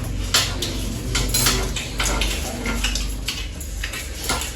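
Cutlery clinking and scraping against a plate during eating: a string of short, irregular clicks over a steady low hum.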